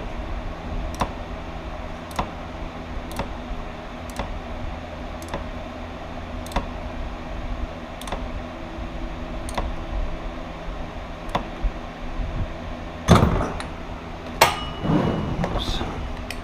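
A ratchet wrench tightening a new motorcycle oil filter, clicking singly about once a second with each stroke. Near the end come two loud knocks and a short clatter as the wrench slips at the final tightening. A steady low hum runs underneath.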